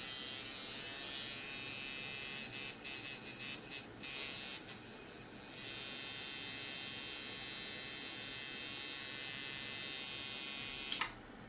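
Coil tattoo machine buzzing on a power supply, its armature bar hammering steadily. A couple of seconds in it stutters and drops in and out for about three seconds, then runs steadily again and cuts off near the end. This erratic running is what the tattooist takes for a missing capacitor or a broken capacitor wire.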